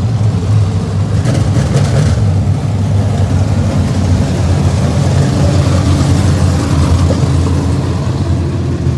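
Engines of a pack of dirt-track modified race cars running together: a loud, steady, low drone with no single car standing out.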